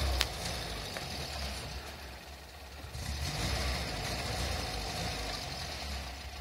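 Pinzgauer off-road truck's engine running at low revs as it crawls over a rocky ledge, with one sharp click near the start.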